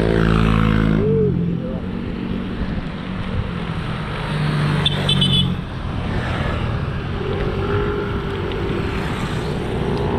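Motorcycle engine running at road speed, with steady road and wind noise.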